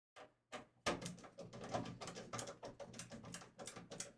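A screwdriver working at a stuck screw in a computer case: a fast, irregular run of clicks and scrapes.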